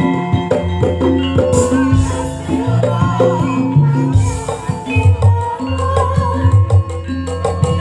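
Live campursari music, the Javanese blend of gamelan and modern instruments: a full ensemble with steady bass notes, melodic tones and busy drum strokes.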